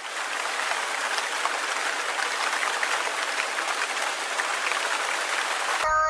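Applause: dense, steady clapping of a large crowd. It cuts off abruptly near the end as music with singing comes in.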